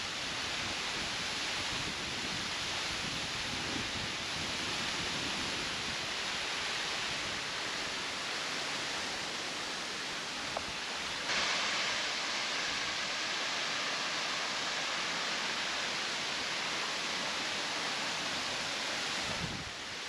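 Waterfall: a steady, even rush of falling water. A little past halfway it shifts suddenly to a brighter, hissier sound.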